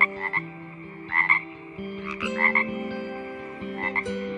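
Frog croaking: short calls of two or three quick notes in a row, repeated about once a second.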